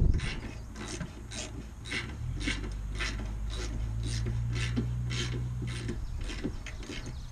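Hand ratchet wrench with a 3/4-inch socket clicking in an even rhythm, about two strokes a second, as a radiator mounting bolt is run in.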